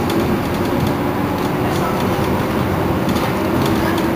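Iveco Crealis city bus running: a steady drive and road noise with a low steady hum, and a few light clicks.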